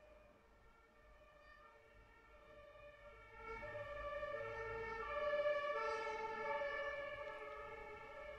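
Ambulance two-tone siren alternating back and forth between two pitches. It is faint at first, gets much louder about three and a half seconds in, then eases off slightly.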